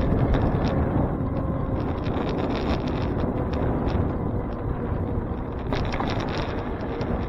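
Wind buffeting the microphone of a bicycle-mounted camera as the bike rolls along, with light clicks and rattles scattered through, a cluster of them about six seconds in.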